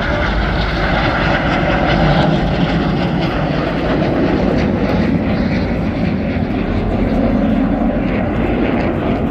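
Jet noise from two Red Arrows BAE Hawk T1 jets flying past and climbing away, loud and steady with little change in level.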